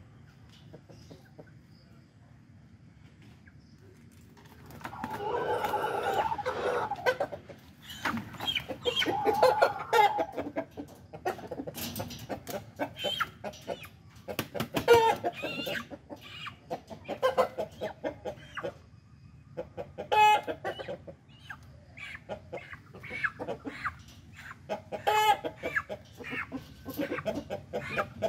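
Domestic chicken clucking and squawking as it is caught and lifted out of a bamboo cage. Quiet for the first few seconds, then a loud flurry of squawks about five seconds in, followed by repeated short clucks and calls while it is held.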